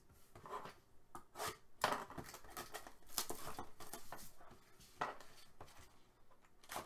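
Cardboard trading-card box being handled and moved about on a desk: a series of short rustles and scrapes.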